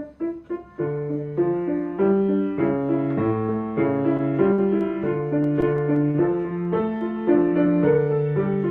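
Piano playing a short insect-themed figure: repeated short notes, then about a second in a low bass line and chords join in, the bass standing for a grasshopper.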